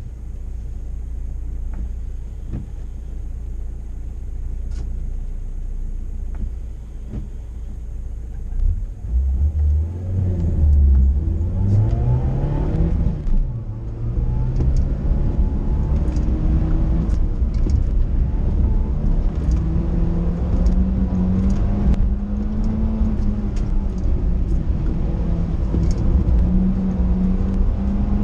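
Toyota Sera's 1.5-litre four-cylinder engine idling low, then revving hard from a launch about nine seconds in. It climbs in pitch, drops at an upshift around thirteen seconds, and runs on at high revs, rising and falling with the throttle, while the car is driven hard through an autocross run.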